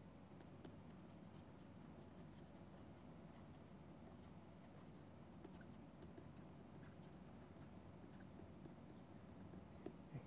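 Faint scratching and tapping of a pen stylus writing on a tablet, over a low steady hum.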